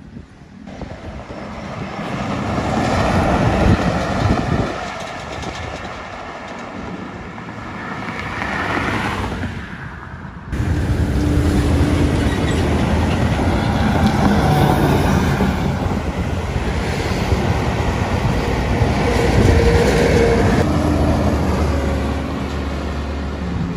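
Diesel coach buses passing on a highway, one take after another: engine and tyre noise swelling and fading, then a sudden change to a louder, steady engine note with a low hum as a MAN coach comes by, and another switch near the end to a Higer U-Tour coach passing.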